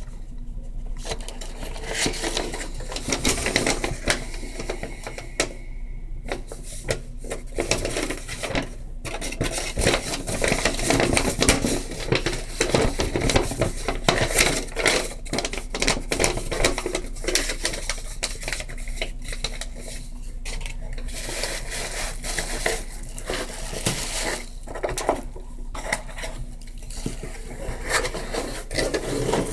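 Small hard plastic and glass pieces of an acrylic nail kit being handled: a continual clatter of clicks and taps, busiest in the middle.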